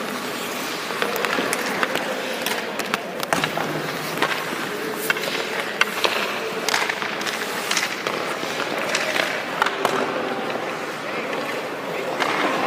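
Hockey skates scraping and carving on the ice, with scattered sharp clacks of sticks and pucks.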